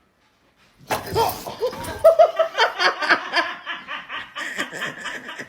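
A person laughing hard in a run of short, choppy bursts that starts about a second in.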